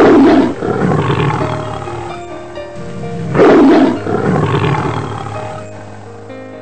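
Lion roaring twice, about three and a half seconds apart, each roar loud at the start and trailing off, over background music.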